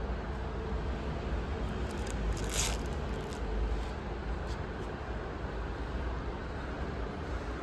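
Steady low rumble and hiss of background noise, with a brief rustle about two and a half seconds in.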